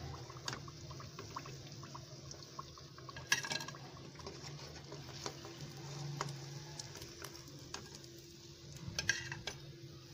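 Hot oil in a wok crackling and sizzling as a deep-fried breaded chicken fillet is lifted out with a metal slotted spatula. Two louder metal clatters stand out, about three seconds in and near the end.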